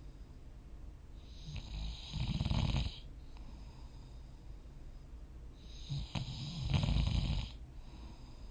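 A person snoring in deep sleep: two long snores about four seconds apart. Each starts as a breathy rush and builds into a loud low fluttering rumble.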